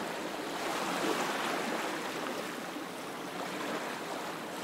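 Ocean waves: a steady wash of sea noise.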